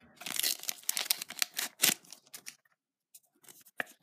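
Paper stickers being picked up and flicked through by hand: a quick run of crisp rustles and clicks for about two and a half seconds, then a pause and a few light clicks near the end.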